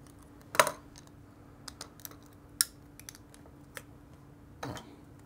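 Sharp clicks and taps of a screwdriver and small plastic camera-housing parts as the housing is unscrewed and a plastic frame is pulled away. The loudest click comes about half a second in, another sharp one at about two and a half seconds, with lighter clicks between and a short scrape near the end. A faint steady hum sits underneath.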